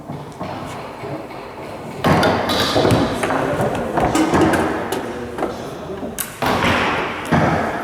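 Table football play: the ball knocking against the players' figures and the table walls, with a quick run of sharp clicks and thumps and rods clacking, busiest from about two seconds in.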